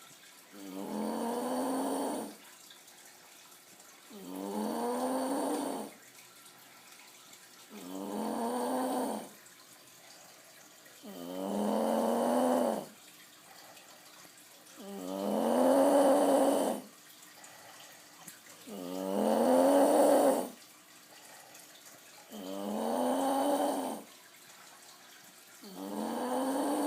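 A man snoring in his sleep: a regular run of about eight loud, pitched snores, each lasting a second and a half to two seconds, one every three and a half to four seconds, with quiet breathing gaps between.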